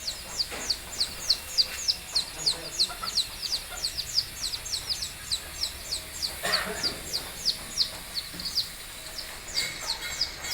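A bantam chick peeping: a rapid, unbroken string of short, high, falling peeps, about four a second, with one brief louder sound around six and a half seconds in.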